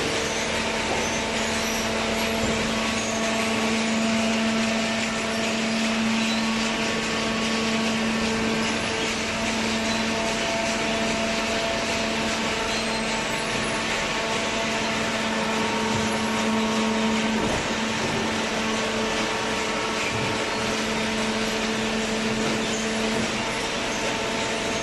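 Cardboard baler machinery running with a steady hum, several held tones over a constant mechanical noise.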